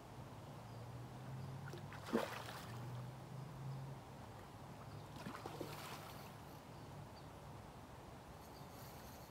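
Hooked king salmon splashing at the river surface while being played on the line: a sharp splash about two seconds in and another a few seconds later, over a low steady hum.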